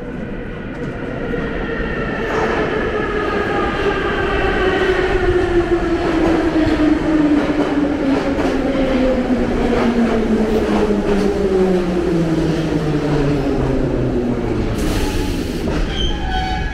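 Metro train pulling into the station and braking to a stop: its traction motors whine in several tones that slide steadily downward in pitch as it slows, over the rumble of the wheels. A short hiss comes near the end as it halts.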